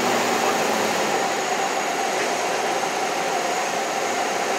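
Cockpit noise of a light single-engine piston aircraft on the runway after landing: the engine runs steadily with a dense hiss, easing off slightly in loudness.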